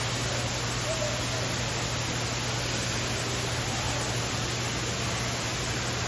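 Steady, even hiss with a low hum underneath, unchanging throughout.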